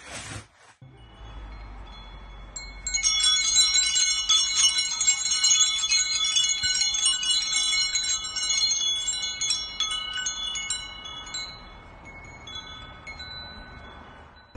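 Metal-tube wind chime being knocked about by a bird, its tubes ringing in a dense jangle of overlapping high tones that swells about three seconds in and slowly dies away near the end.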